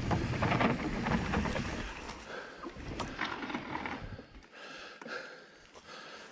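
Mountain bike ridden over a rooty dirt trail: the tyres rumble and the bike rattles, with sharp knocks as it hits roots. The rumble drops off about four seconds in, leaving quieter ticking and rattling.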